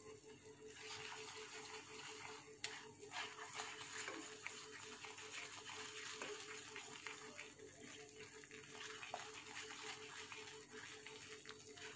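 Peanut butter sauce sizzling and bubbling faintly in a nonstick frying pan as a silicone spatula stirs it, a fine crackle with an occasional click, over a steady low hum.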